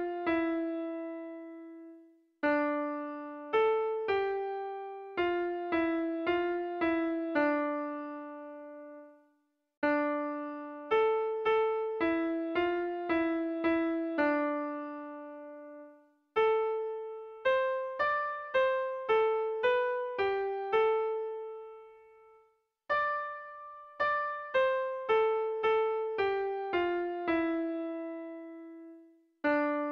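Background music: a simple electric-piano melody of single notes that ring and fade, played in short phrases with brief pauses between them.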